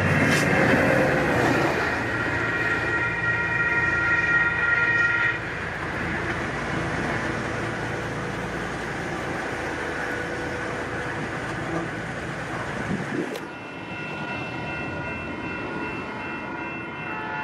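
Caltrain diesel commuter train rumbling through a grade crossing, with a steady multi-note warning sound that cuts off abruptly about five seconds in. The rumble then fades. Near the end, a new set of steady warning tones starts.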